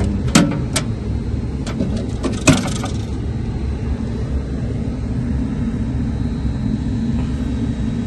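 Several sharp clicks and taps of wires and metal parts being handled inside a rooftop unit's electrical control panel, the loudest about two and a half seconds in. Under them runs a steady low rumble.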